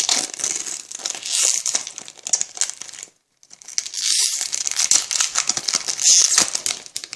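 Pokémon TCG Primal Clash booster pack's foil wrapper being torn open and crinkled by hand, in two spells with a short break about three seconds in.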